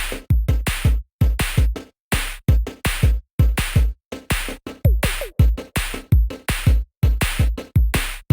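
Electronic background music: a drum-machine beat of heavy bass kicks and sharp hits with abrupt stops between them.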